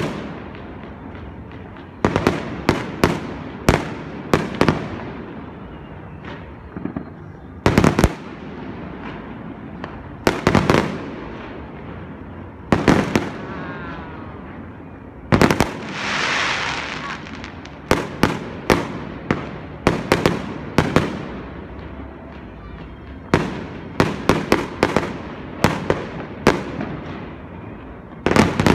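Aerial fireworks going off in clusters of sharp bangs, each with an echoing tail. A hissing crackle follows a burst about sixteen seconds in and comes again near the end.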